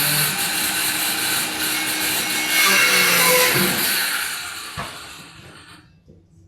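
Power tool running on wood, loud for about four seconds and then fading away, with a single knock near the end.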